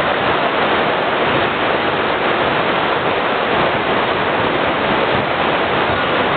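Steady, loud wash of crowd noise echoing through an indoor gymnasium, a continuous roar with no distinct words or single sounds standing out.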